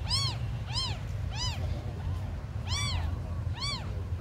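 Very young kittens mewing: about five short, high-pitched calls, each rising and falling in pitch.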